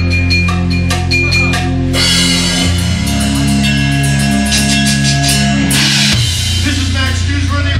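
Live rock band playing: a Ludwig drum kit pounding under sustained bass and electric guitar notes, with big cymbal-crash hits about two seconds in and again near six seconds.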